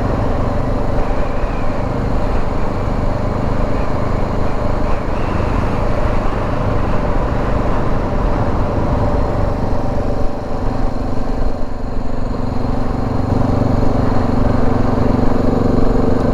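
Dual-sport motorcycle being ridden at a steady pace, its engine running at an even note over road and air noise. The engine grows a little stronger in the last few seconds.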